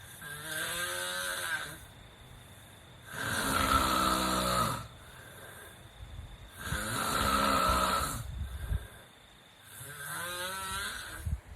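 A sleeping person snoring: four snores about three seconds apart, each a buzzing, rattling drone lasting one to two seconds, the middle two the loudest.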